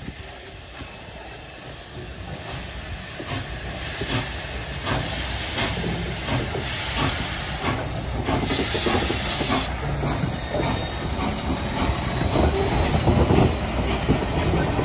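Norfolk & Western 611, a J-class 4-8-4 steam locomotive, drawing closer and growing steadily louder, its exhaust beating in short, evenly spaced chuffs over hissing steam.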